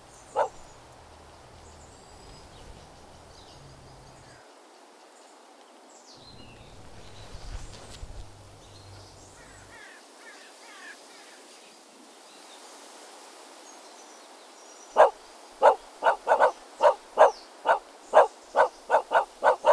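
A small dog barking: one bark just after the start, then a quick run of about a dozen sharp barks, roughly three a second, near the end, over a faint steady outdoor hiss.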